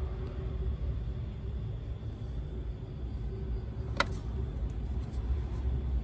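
Low, steady rumbling background noise with a faint hum, broken by one sharp click about four seconds in.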